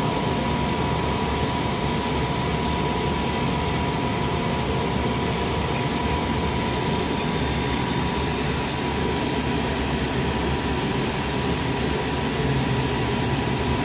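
Steady whine and rush of running aircraft machinery in the cockpit of a Challenger CL601 business jet, with a constant high tone over the noise.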